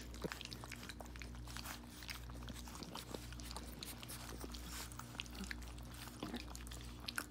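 Several puppies lapping and smacking at soft gruel in a stainless steel pan: a dense, irregular run of small wet clicks and slurps, over a steady low hum.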